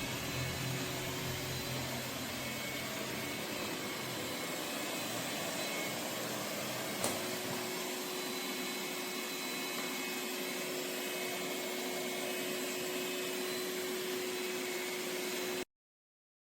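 Robot vacuum cleaner running: a steady whirring noise with a faint hum and a single click about seven seconds in, cutting off suddenly near the end.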